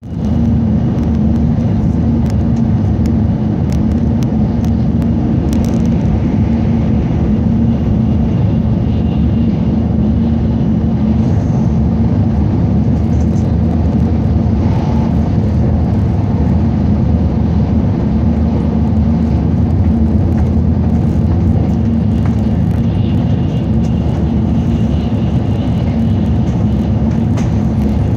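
Steady low rumble and rush of a Shinkansen bullet train running at speed, heard from inside the passenger cabin.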